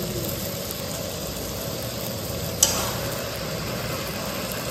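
Chopped onions and capsicum sizzling in a steel kadai over a steady low rumble, with a single sharp click a little past halfway.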